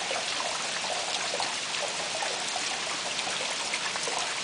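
Steady rain falling: a dense, even hiss dotted with many small drop ticks.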